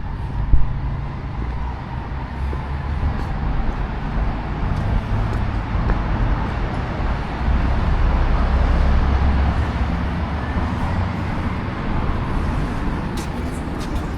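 Street traffic noise: a steady low rumble of passing vehicles that swells around the middle, with a short knock about half a second in.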